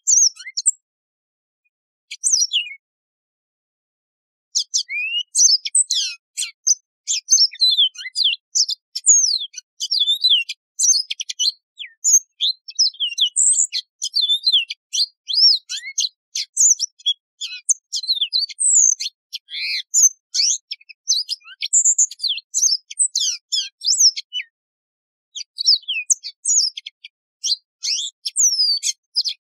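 Yellow-fronted canary singing: two short phrases, then from about four seconds in a long, fast run of high chirps and quick sliding whistles, with a short pause near the end before the song resumes.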